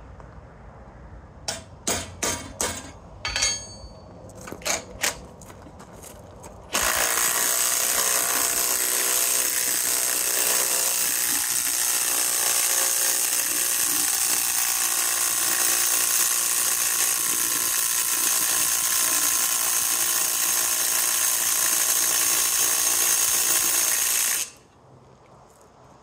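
A few sharp knocks and clicks, then a Ridgid brushless Octane cordless impact driver hammering steadily as it drives an 8-inch, half-inch lag bolt into timber. The driver runs for about eighteen seconds and stops suddenly near the end.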